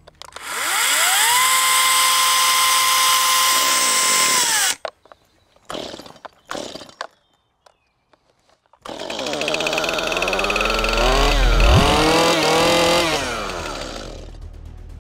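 Greenworks 60V brushless battery chainsaw spinning up to speed almost instantly, holding a steady high whine, then stopping abruptly a little under five seconds in. After a short near-quiet pause, a two-stroke petrol chainsaw runs and revs, its pitch wavering up and down, then fades near the end.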